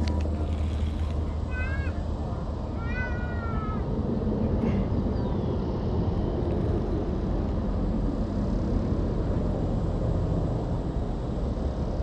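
Two short, arched, pitched animal calls about two and three seconds in, over a steady low background rumble.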